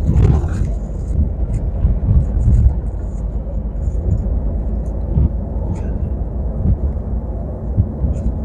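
Semi-truck tractor unit driving, heard from inside the cab: a steady low engine and road rumble with scattered faint clicks.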